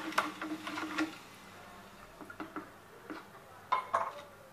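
A hand stirring crushed grapes with water and sugar in a large plastic jar: quick clicks and taps for about a second, then a few scattered softer taps and two sharper knocks near the end.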